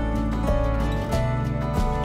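Instrumental background music with steady held notes and a regular pulse.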